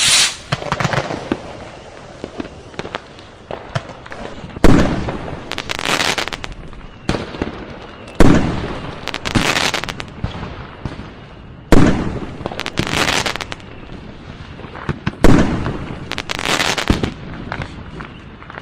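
Firecrackers going off: four loud sharp bangs about three and a half seconds apart, each followed by a second or so of crackling pops, with a bang at the very start and scattered small pops in between.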